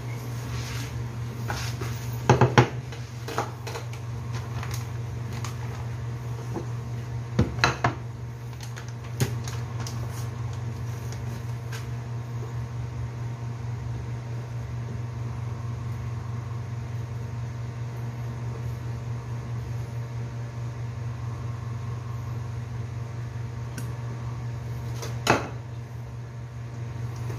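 A few sharp clinks of dishes: a cluster about two seconds in, another around seven to eight seconds, and a single one near the end. A steady low hum runs underneath.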